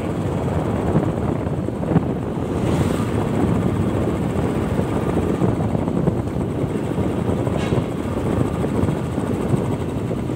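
Motorcycle being ridden, its engine running steadily under a dense rush of wind on the microphone.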